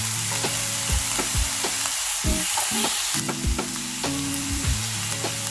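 Chopped onion, carrot, capsicum and curry leaves sizzling in oil on medium flame in a nonstick pan, with a metal spatula scraping and tapping against the pan as they are stirred, a few irregular clicks a second.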